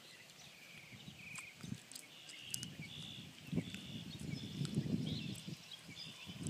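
A short high animal chirp repeated at an even pace, a little more than once a second. A low rumble rises under it from about the middle and is the loudest sound.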